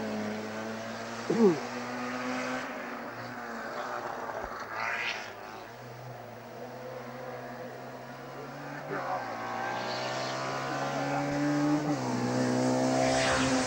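Race car engine running hard up a mountain road, its pitch shifting in steps a few times and growing louder near the end.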